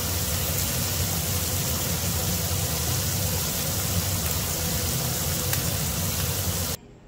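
Marinated beef slices sizzling in bubbling butter in a nonstick frying pan, a steady, loud sizzle that stops abruptly near the end.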